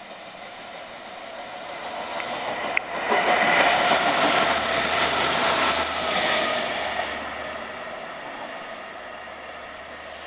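Windhoff MPV overhead line train running through the station without stopping: its noise builds as it approaches, is loudest for a few seconds as it goes by with a steady whine over the rush of wheels on rail, then fades as it draws away. A single sharp knock comes just before it draws level.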